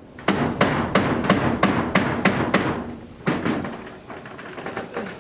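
Hammer blows in a steady run, about three a second: eight or so strikes, then two more after a short pause.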